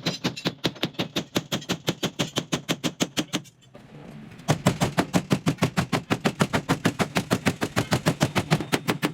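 Rapid repeated strikes on a car body panel, about eight or nine a second, stopping briefly a little after three seconds in and then going on.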